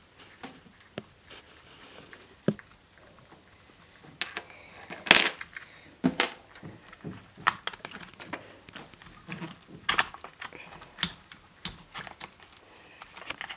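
Scattered clicks and small knocks of hands working loose the metal parts of a brushed electric motor to take it out of a radio-controlled car, the sharpest clicks about five and ten seconds in.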